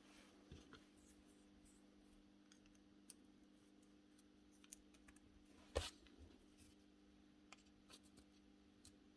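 Small parts and tools being handled during a repair: faint scattered clicks and one sharper knock a little past the middle, over a steady low hum.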